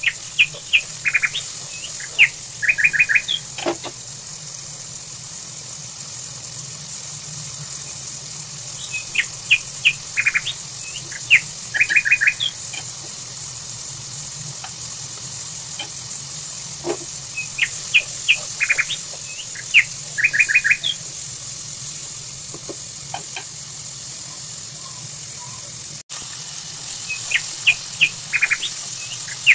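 Songbird singing the same short phrase four times, about nine seconds apart: a quick run of high chirps ending in a fast trill. A steady hiss runs underneath.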